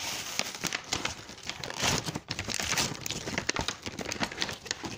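Toy packaging being torn and pulled open: an irregular run of crinkling, crackling and rustling.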